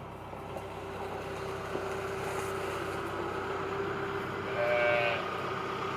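A sheep bleats once, briefly, near the end, over a steady hum.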